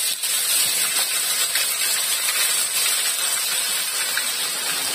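Blended spice paste of ginger and onion sizzling in hot oil in a wok: a steady frying hiss that eases slightly over the seconds.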